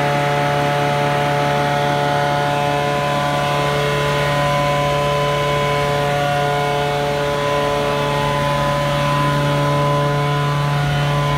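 Vortex truck-mounted water extraction unit running: engine and vacuum blower keep up a loud, steady drone with a constant whine.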